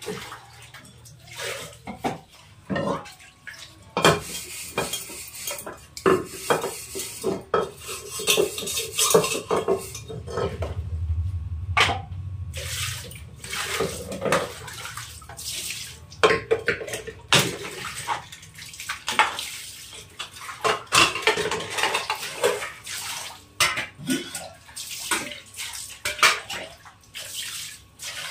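Metal pots, a pressure cooker and steel plates clanking and scraping as they are scrubbed by hand on a concrete floor, with water poured and splashing over them. The clanks come irregularly, many times a few seconds apart.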